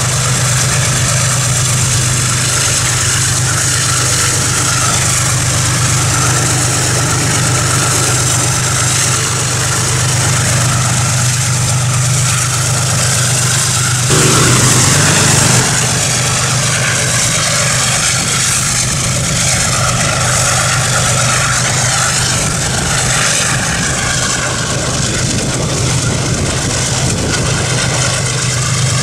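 Motorcycle engine running at a steady speed, with wind noise over the microphone. About fourteen seconds in, a brief louder sound lasts a second or two.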